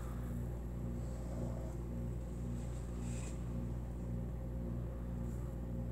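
A steady low mechanical hum with a faint, even pulse, like a fan or appliance motor running, with a brief soft rustle about three seconds in.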